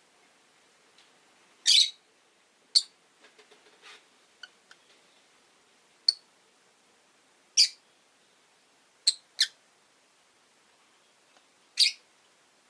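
Rosy-faced lovebirds giving short, sharp, high-pitched chirps, about seven spaced calls with one quick double call near the middle, and soft quiet chatter and clicks between them.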